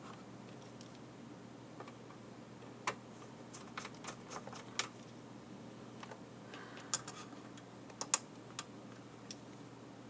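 Light, sharp clicks and taps, about eight of them at irregular intervals, from small screws and a screwdriver being handled during reassembly of a camera housing.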